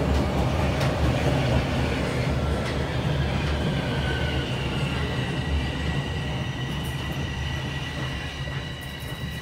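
Bombardier Toronto Rocket subway train pulling into the station and slowing: a low wheel rumble that fades as it slows, with a steady high whine coming in about three seconds in.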